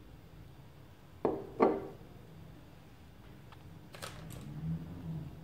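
Glass jar mug set down on a granite countertop: two sharp clunks a third of a second apart, about a second in. A few faint light clicks follow near the end.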